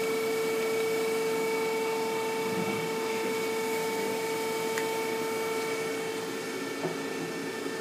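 Okuma & Howa ACT-3 CNC lathe running with its spindle stopped: a steady machine whine of several fixed pitches over a low hum, easing slightly toward the end. A small click is heard about five seconds in, and another faint tick near the end.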